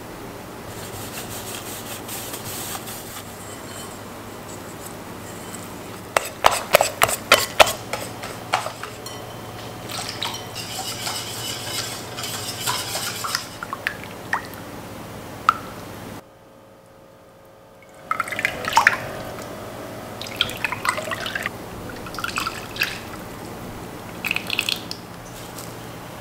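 Crepe batter being stirred in a glass bowl: wet mixing sounds with runs of sharp clicks as the utensil knocks against the glass, broken by a short quiet gap in the middle.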